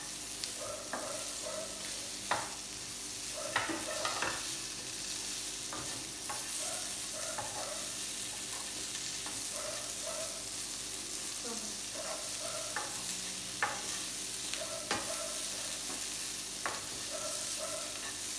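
Boiled potato cubes sizzling in oil in a frying pan while a wooden spatula stirs and turns them, with irregular knocks and scrapes of the spatula against the pan over a steady sizzle.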